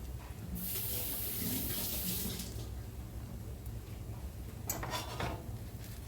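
Cubes of butter sizzling and hissing as they hit a hot frying pan, a burst of about two seconds that then dies down, followed by a brief clatter near the end.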